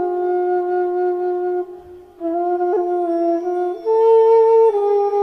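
Background music: a solo flute-like wind instrument playing a slow melody of held notes that step up and down, with a short break about two seconds in.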